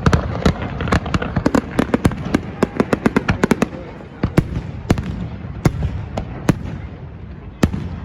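Fireworks going off: a fast run of sharp crackling bangs over a low rumble, thinning about halfway into single sharp reports spaced out every half second to a second.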